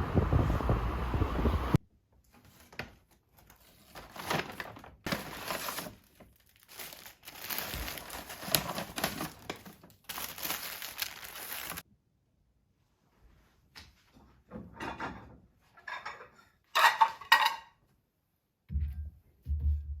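Household items being handled and set down: a series of scattered light knocks and clinks, with a louder clatter about 17 seconds in. It opens with a second or two of steady vehicle noise that cuts off abruptly.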